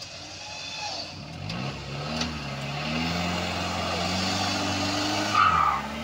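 Modified Suzuki Jimny's engine revving up under load, its note rising steadily for a few seconds as the tyres dig and throw mud to climb out of a mud pit, then dropping off at the end. A brief loud, higher sound cuts in about five seconds in.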